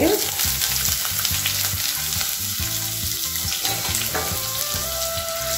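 Finely chopped onions sizzling steadily in hot mustard oil in a kadhai, just added to the pan, with a wooden spatula stirring them.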